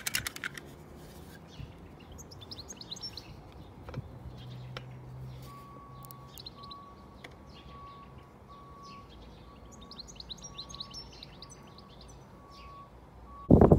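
Small birds chirping, with a steady electronic beep repeating about twice a second through the second half. A voice breaks in just at the end.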